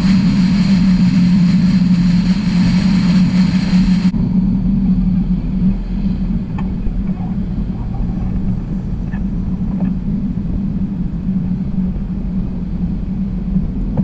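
Wind rush and road and engine noise of a pickup truck driving at highway speed, heard from a camera on its hood, over a steady low drone. About four seconds in the hiss cuts away abruptly, leaving the truck running slowly with the low drone and a few faint clicks.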